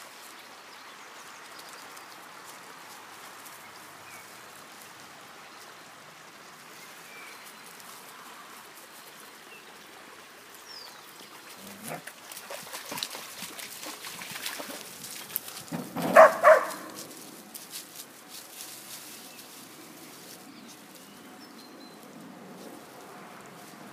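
A shallow creek burbling steadily, with a spell of splashing and scuffling from dogs at the water's edge about halfway through. A dog then barks twice in quick succession, the loudest sound.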